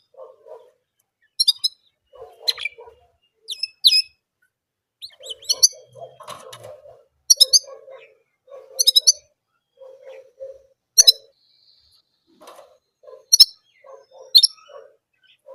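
German canary singing in short, separate high chirps, about one every second or two, with lower notes in between rather than a continuous song.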